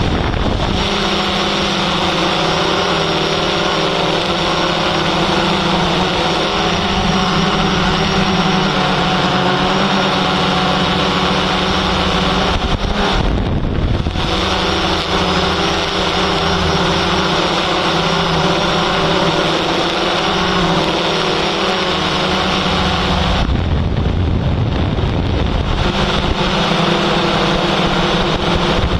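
Yuneec Typhoon H hexacopter drone's motors and propellers whirring steadily with a droning hum, mixed with wind noise on its microphone. The tone drops out briefly about halfway through and shifts again for a couple of seconds near the end.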